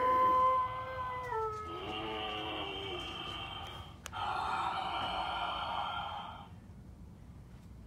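Eerie sound effects from a Halloween haunt prop: a long wailing tone that drops in pitch about a second in, a second falling wail, then a harsher, noisier cry for about two seconds that fades out.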